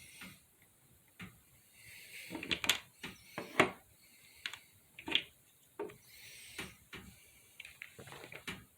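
Irregular knocks and clicks of objects being handled, about a dozen, with soft rustling between them.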